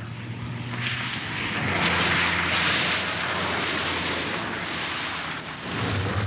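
Austin Metro driving through water on a wet test track: a hiss of tyre spray swells about a second in and peaks around two seconds, over the low steady hum of its engine.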